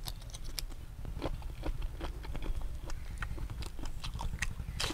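Close-up chewing of raw shrimp and a bite into a slice of raw bitter gourd: irregular wet clicks and crunches, with the loudest crunch near the end, over a steady low hum.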